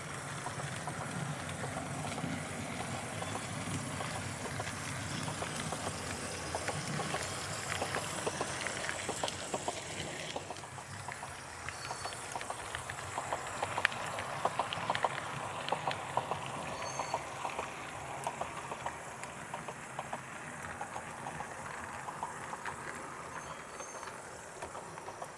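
HO scale model train rolling along the track, a steady running noise with frequent light clicks from the wheels over the rails.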